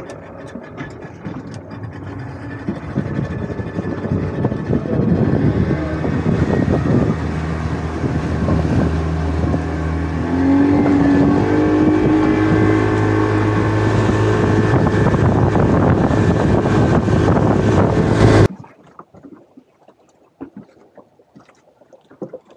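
Boat motor running steadily, its pitch rising about ten seconds in as it speeds up, then cutting off abruptly a few seconds before the end.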